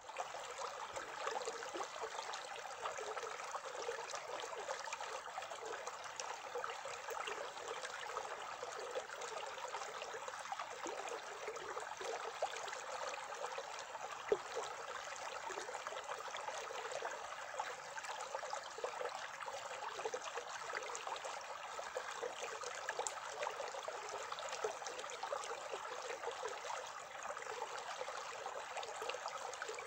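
Small mountain stream flowing steadily, a continuous babbling trickle with many small splashes.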